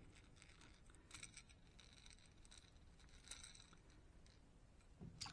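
Near silence with faint scratching and small clicks as hands unhook a plastic wobbler lure from a small pike, with a sharper click near the end.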